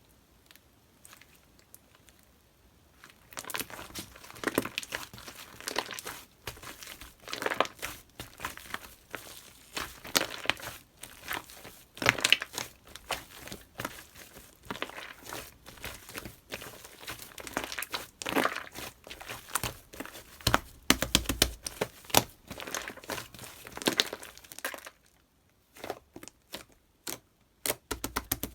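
Crinkling and crumpling, starting about three seconds in and going on densely and irregularly until a few seconds before the end, where it gives way to a few scattered sharp clicks.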